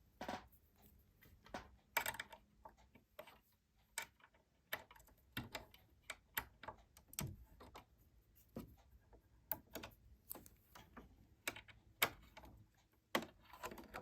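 Irregular small metallic clicks and taps of a screwdriver working at the throat-plate screws of a sewing machine, one or two a second, a few sharper than the rest.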